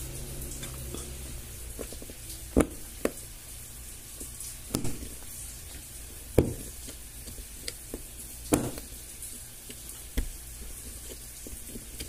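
Screwdriver tip clicking and scraping against the metal spider clip that retains a fan motor's shaft bushing: about half a dozen sharp clicks a second or two apart, over a steady low hum in the background.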